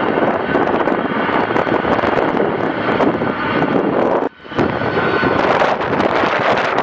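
Boeing 747-400's four jet engines running as it taxis past: a loud, steady rush with a faint high whine. The sound cuts out for a moment about four seconds in.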